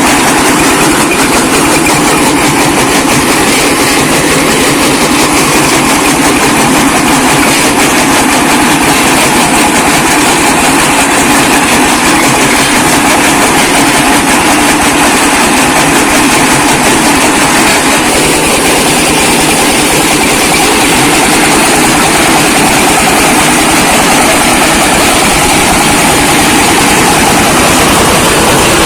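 Brick breaker machine running steadily with a loud, continuous mechanical clatter as it crushes bricks.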